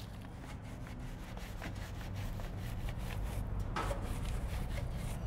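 Nylon-bristled wheel brush scrubbing a wet, soapy truck wheel: a continuous rough rubbing made up of many irregular scratchy strokes, over a steady low hum.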